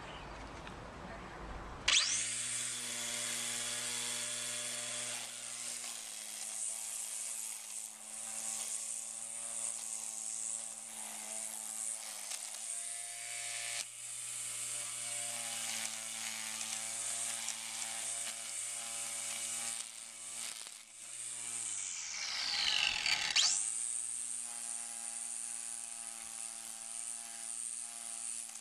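Cordless electric string trimmer, used as an edger, starting up about two seconds in and running steadily with its motor whine and line hiss. About three-quarters of the way through it spins down and then speeds back up to full speed.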